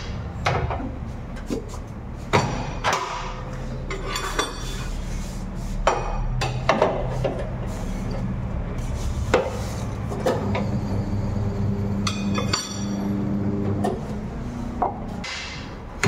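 Metal tyre lever knocking and clinking against a motorcycle wheel rim on a tyre-changing machine as a tyre is worked off and a new one fitted, in irregular sharp knocks. A low steady hum runs beneath.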